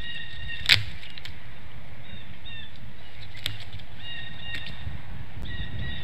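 A bird calling outside the nest in short, flat notes, often in pairs, repeated every second or two over steady low background noise. A single sharp snap about a second in, as the eagle works at the carcass.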